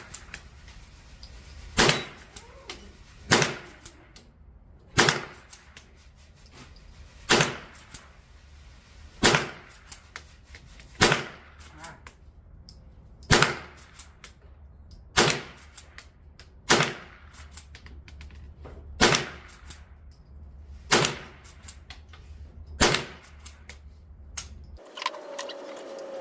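.22LR lever-action rifle fired twelve times at steel targets, a shot about every two seconds, with smaller clicks between shots as the lever is worked.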